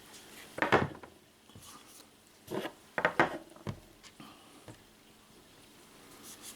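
Clicks and clacks of the disassembled Umarex TPX50 pistol's slide and small parts being handled: a sharp clack under a second in, then a few more knocks around two and a half to three and a half seconds, with lighter ticks after.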